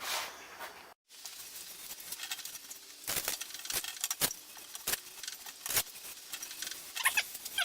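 Scattered sharp clicks and knocks of metal tools and wheel parts being handled, a handful of single strikes coming closer together near the end.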